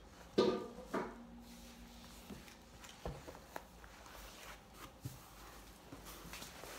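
Objects on a folding table being moved and set down: two sharp knocks in the first second, then a few lighter taps and handling noise.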